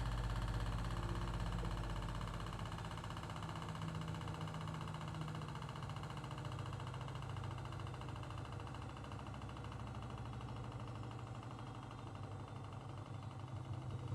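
Arçelik 9123N washing machine spinning: a steady low motor-and-drum hum with a fast, fine rattle running through it, the noise and clatter during the spin that the owner reports as a fault. The deepest part of the hum drops away a couple of seconds in.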